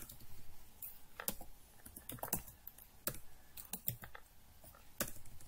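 Typing on a computer keyboard: scattered, irregular keystrokes with short pauses between them.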